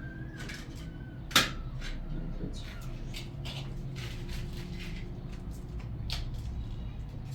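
A run of light clicks and taps, with one sharp knock about a second and a half in, over a steady low hum.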